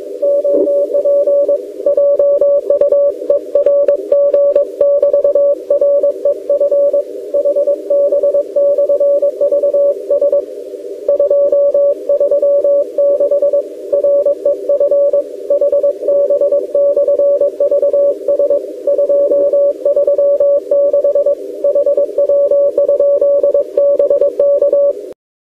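Morse code (CW) on the 40 m band from a portable ham radio transceiver: a steady tone keyed on and off in short and long marks, over a narrow band of receiver hiss. It cuts off suddenly just before the end.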